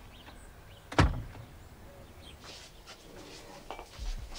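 A wooden door banging shut once about a second in, a sharp knock with a heavy low thud. Near the end comes a softer low thump with faint rustling.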